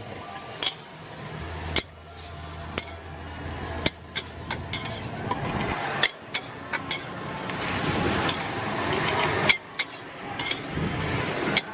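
Metal wok spatula scraping and knocking against a steel wok while long beans, pork and chili paste are stir-fried, with irregular sharp clinks over a steady frying hiss.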